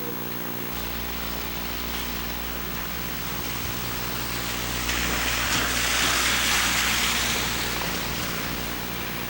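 A car passes on a snowy street: tyre hiss swells up about halfway through and fades over a few seconds. A steady electrical buzz from the Hi8 camcorder's audio runs underneath.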